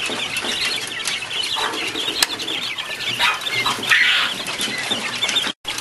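A crowd of young quail chicks peeping continuously, many short high chirps overlapping. The sound cuts out for an instant near the end.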